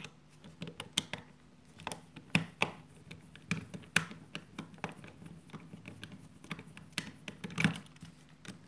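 Screwdriver tip clicking and scraping against the small screws in a Philips HQ7340 shaver's plastic head housing as they are worked loose: a run of irregular light clicks, with a few sharper ones.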